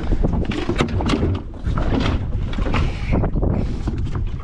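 Wind rumbling on the microphone on a small open boat, with scattered knocks and rustles as a measuring mat and a freshly caught snapper are handled on the deck.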